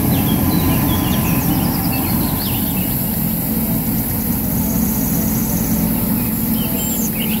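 Heavy vehicle engine idling steadily with a deep rumble, birds chirping faintly in the background.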